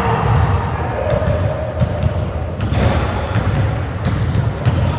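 Basketball bouncing on a hardwood gym floor, the dribbles coming as a string of sharp, irregular thuds that echo in the large hall, with a brief high squeak about four seconds in.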